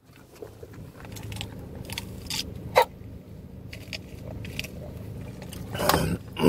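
Car engine idling with a steady low hum, under the crinkle and rustle of plastic and paper food bags being handled and scattered clicks and knocks. A louder sharp click comes about three seconds in, and a longer rustle comes near the end.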